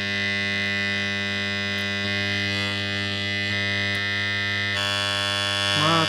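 Microwave-oven transformer rewound with a few turns of thick wire as a high-current secondary, humming steadily under load as it drives current through a hacksaw blade and heats it red-hot.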